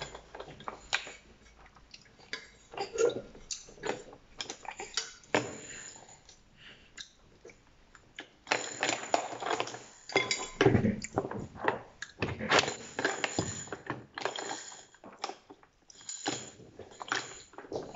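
A baby mouthing and gnawing on plastic teething toys, with irregular small clicks and clacks of the hard plastic; the clicking gets busier for several seconds about halfway through.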